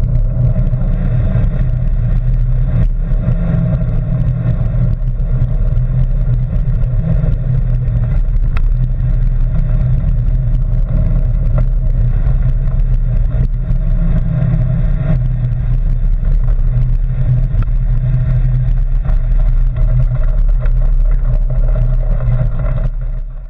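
Steady, loud low rumble of a bicycle ride picked up by a GoPro camera in its housing: wind buffeting, tyres running on the rail-trail path and vibration carried through the bike. It cuts off suddenly near the end.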